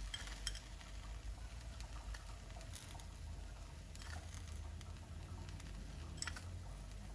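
Faint, scattered light ticks of coarse sugar being sprinkled from a spoon onto kuih cara batter setting in a metal mould, over a low steady hum.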